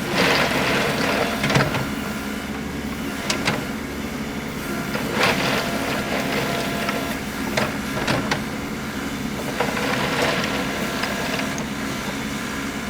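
Track hoe's diesel engine running steadily while its bucket scrapes through crushed rock, with several sharp clanks and scrapes at irregular moments.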